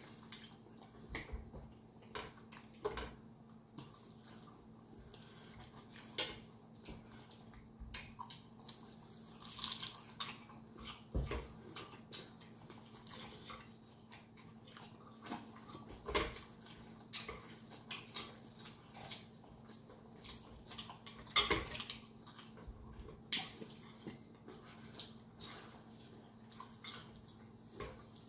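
Fried chicken being eaten close to the microphone: wet chewing and lip smacks coming in scattered bursts, a few of them louder clicks, over a faint steady hum.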